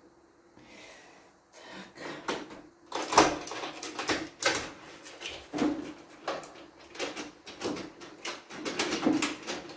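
Irregular metallic clicks and rattles of a key turning in a door lock and a lever door handle being worked as the door is unlocked and opened, starting a second or so in and going on to the end.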